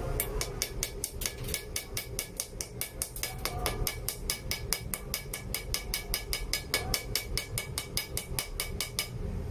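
Welder's chipping hammer tapping the slag off a freshly laid stick-weld bead on a steel bar. Quick, even metal-on-metal strikes, about five a second, stop near the end.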